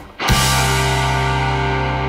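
Background music: the beat breaks off for a moment near the start, then a single chord is held and slowly fades.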